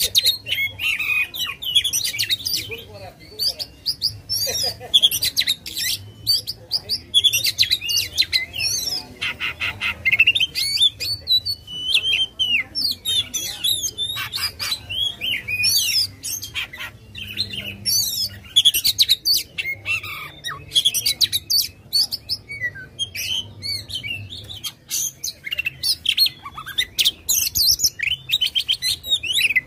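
Oriental magpie-robin (kacer) singing continuously and vigorously: a fast, varied stream of whistles, chirps and rattling trills, with a faint low hum underneath.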